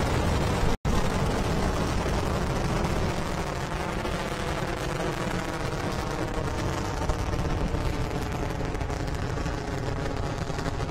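Falcon 9 rocket's nine Merlin 1D first-stage engines during ascent soon after liftoff: a loud, steady, crackling rumble, heaviest in the low end. It drops out for an instant about a second in.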